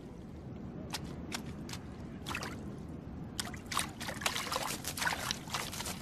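Shallow water with small wet splashes and trickles as foraging sandpipers wade and probe the mud with their bills: a scatter of brief clicks and drips over a low steady wash.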